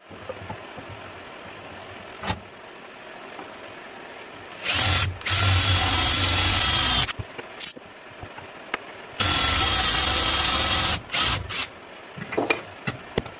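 Cordless drill boring holes into a wooden board: two runs of about two seconds each with a steady whine, each followed by short bursts. Light knocks and taps fill the quieter stretches between.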